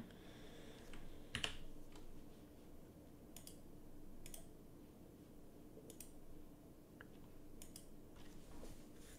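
Faint, scattered clicks of a computer mouse and keys, about seven of them spaced a second or two apart, over a low steady room hum.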